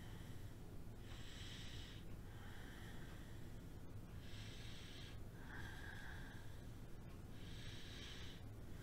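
A person's slow, even breathing while holding a yoga pose: a brighter hiss followed by a softer, lower one, repeating about every three and a half seconds, three breaths in all. A low, steady room hum lies underneath.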